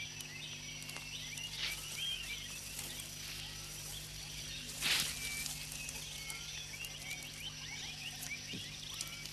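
Tropical rainforest ambience: many faint, high, short chirping calls from small forest animals over a steady low hum, with a brief louder rush of noise about five seconds in.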